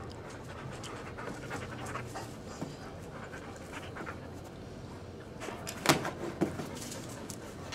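Siberian husky panting close to the microphone. About six seconds in there are two sharp knocks, a half-second apart, the loudest sounds here.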